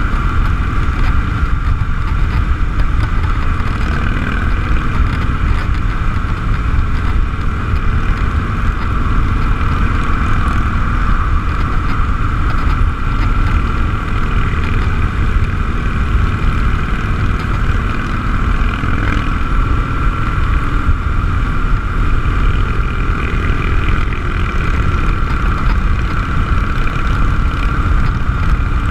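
Harley-Davidson V-twin motorcycle cruising steadily at highway speed, its engine drone mixed with heavy wind rush buffeting the camera microphone.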